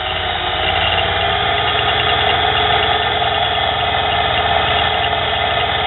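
Nano mini lathe running steadily, its motor and spindle turning at an even speed while the tool bit is fed along a metal hinge pin.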